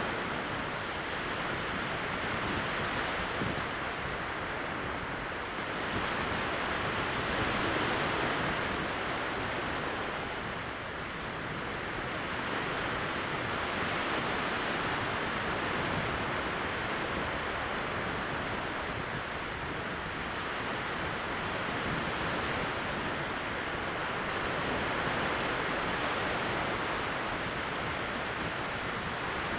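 Calm sea at very low tide: small waves breaking in a steady wash of surf that swells and eases every few seconds.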